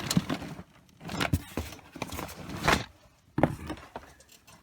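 Rustling and knocking as boxed software and disks are handled and dug out of a box, in three bursts with sharp clicks, the last one short.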